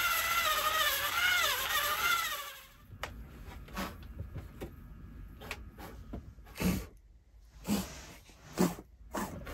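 Cordless drill running with its pitch wavering up and down as the trigger is worked, stopping about two and a half seconds in. A few short wooden knocks and thuds follow.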